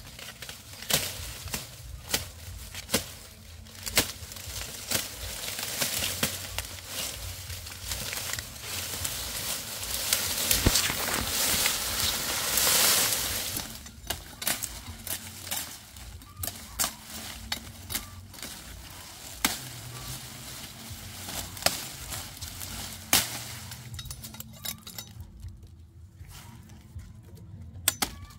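Sugarcane stalks being chopped at the base, with sharp irregular cracks and knocks, among dry sugarcane leaves that rustle and crackle throughout. The rustling grows loud for a few seconds about halfway through.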